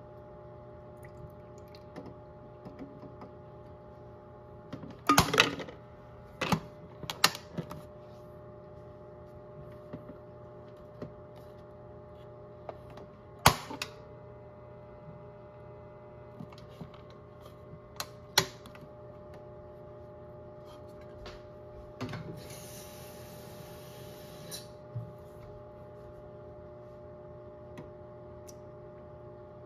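Modified Miele toy washing machine running, its motor giving a steady hum made of several tones while the drum turns. Sharp knocks and clicks come now and then, with a short hiss a little past the middle.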